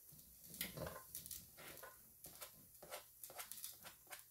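Faint scraping and light irregular taps as chopped onion is swept off a plastic cutting board into an enamel pot, the pieces dropping in.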